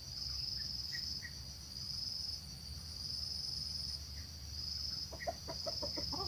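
Insects trilling in a steady high-pitched chorus that swells and dips about once a second. Near the end comes a quick run of short clucks from the decoy red junglefowl close by.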